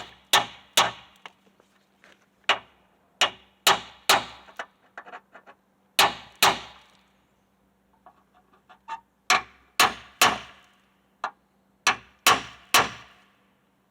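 Hammer blows on steel, driving an old rivet out of a 1976 Ford F100's frame: about fifteen sharp, ringing strikes, mostly in quick pairs or threes with short pauses between. The rivet stays tight, since the riveted-in rivets have swollen in their holes.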